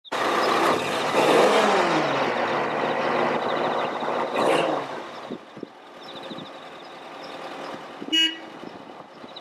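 A vehicle driving along, its engine and tyre noise loudest in the first few seconds with the engine pitch gliding as it goes, then dropping away to a quieter run. A short horn toot comes about eight seconds in.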